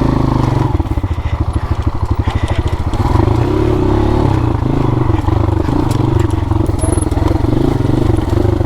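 Single-cylinder dirt bike engine running at low revs with distinct pulses, then pulling harder and louder about three seconds in as the throttle opens on the trail.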